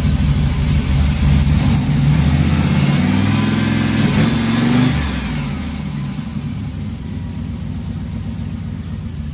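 Turbocharged GM LS V8 running on its newly installed twin-pump fuel system; the revs rise briefly about three seconds in, then it drops back and runs quieter from about five seconds on.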